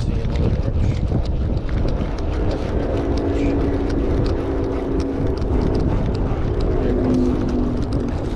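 Wind buffeting the microphone in a steady low rumble. From about two and a half seconds in, a distant engine's steady hum joins and holds, dipping slightly in pitch near the end.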